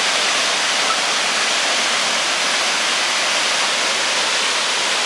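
Tall waterfall pouring into a gorge: a steady, unbroken rush of falling water.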